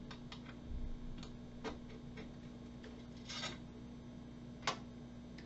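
Faint, scattered clicks and ticks of a 9/64 Allen wrench turning socket head cap screws loose on the metal bottom plate of a pull-down braking point module, with a brief rub about three seconds in and a sharper click near the end. A steady low hum runs underneath.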